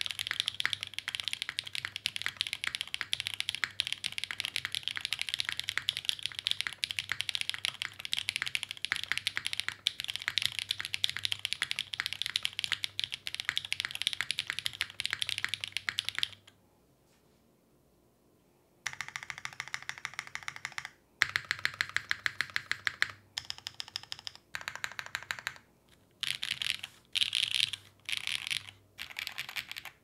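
Iron165 R2 custom mechanical keyboard, with lubed Tungsten switches on a polypropylene plate and GMK keycaps, being typed on quickly: a dense stream of keystroke clacks for about 16 seconds, a pause of about two seconds, then several shorter bursts of typing with brief gaps.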